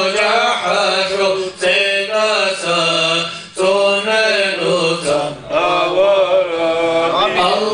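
A man's voice chanting a Muslim supplication (dua) in a melodic recitation, holding notes and sliding between pitches, with short pauses for breath about every two seconds.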